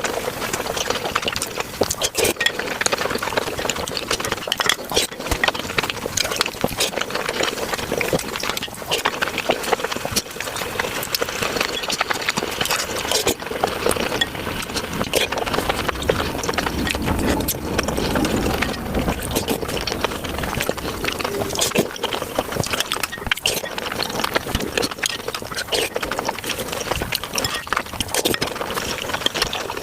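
Close-miked eating sounds of pork momos (dumplings) being chewed, played back sped up about five times, so the chewing clicks run together into a rapid, dense clatter.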